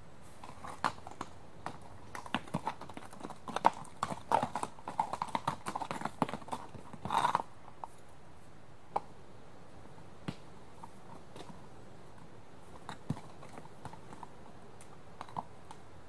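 One restless horse's hooves stamping and shifting on a rough track: a busy run of hoof knocks and scuffs, thickest in a quick flurry about seven seconds in. After that come only a few single hoof strikes a couple of seconds apart.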